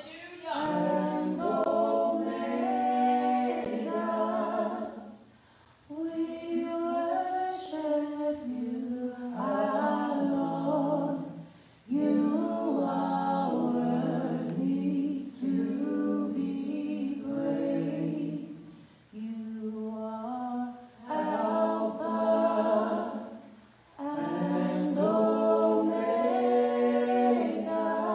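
A small gospel worship team of men and women singing a cappella in harmony, in phrases of several seconds broken by short breaths.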